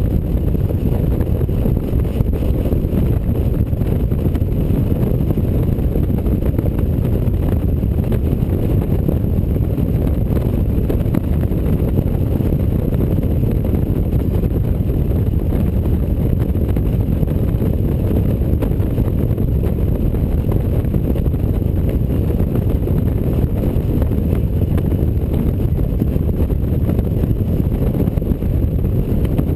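Touring motorcycle cruising at highway speed: a steady, loud low rumble of wind rushing over the microphone mixed with engine and road noise, unchanging throughout.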